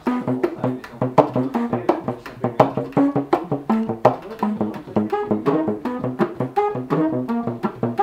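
Tenor saxophone played inside a padded bag-type mute, the Bird "Master" sax mute. It plays a quick rhythmic line of short pitched notes mixed with sharp percussive slaps and clicks.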